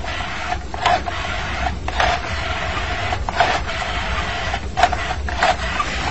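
Telephone being dialled: a rotary dial whirring back after each digit, about six runs of whirring of differing length, each set off by a click.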